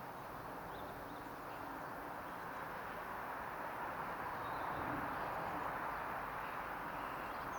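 Steady rushing outdoor noise that swells a little toward the middle and eases again, with a few faint high bird chirps.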